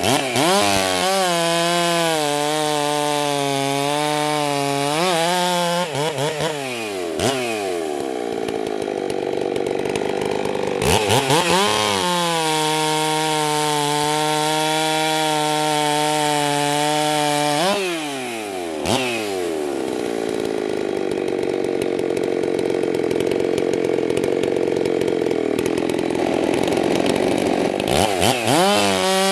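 Ported Husqvarna 390 XP two-stroke chainsaw making test cuts through a log. It revs up and holds a steady high pitch in the cut for about four seconds, then drops back to idle. It revs into a second, longer cut of about six seconds, idles again, and revs up once more near the end.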